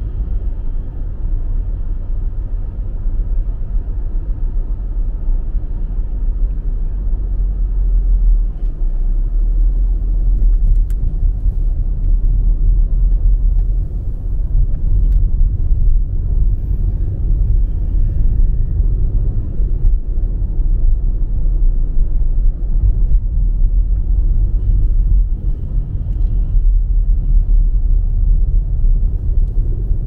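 Steady low rumble of a car at highway speed heard from inside the cabin: tyre, road and engine noise on a wet, snow-covered highway, growing a little louder about eight seconds in.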